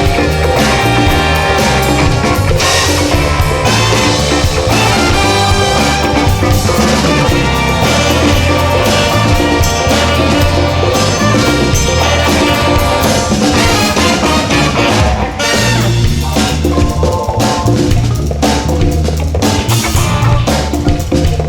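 A live band playing an instrumental funk tune, with drum kit and a moving bass line under it.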